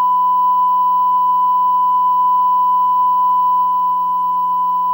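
A censor bleep: one steady, unbroken beep tone held long, covering the speaker's words.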